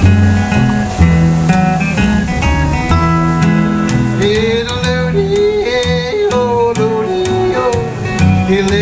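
Live country-blues instrumental intro: a steel-string acoustic guitar picked and strummed over a plucked upright double bass walking steady low notes. About four seconds in, a sustained, wavering melody line joins on top.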